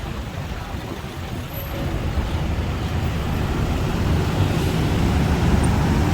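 Road traffic noise with a low engine rumble, typical of a truck or bus, growing louder from about two seconds in.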